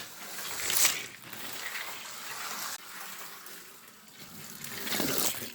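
Scalextric slot car running on its track, a rushing hiss that swells twice, about a second in and again near the end, as the car comes past.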